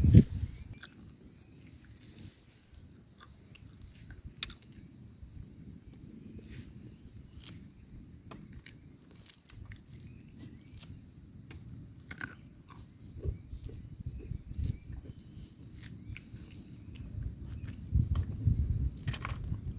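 Steady high-pitched insect chorus, with low gusty wind rumble on the microphone that is strongest near the start and swells again near the end, and a few small scattered clicks.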